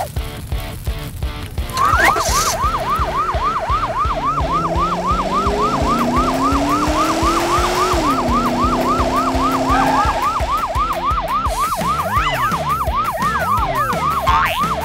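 Electronic siren in a fast yelp pattern, rising and falling about three to four times a second, starting about two seconds in. A lower tone slides upward beneath it for a few seconds in the middle.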